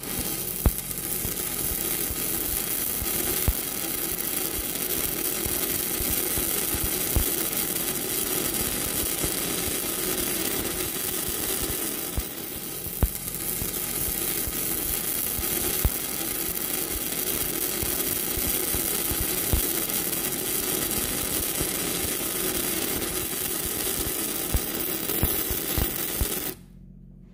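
Stick-welding (SMAW) arc crackling steadily with scattered sharp pops as tack welds are laid on a steel pipe-to-flange joint. The arc cuts off abruptly near the end.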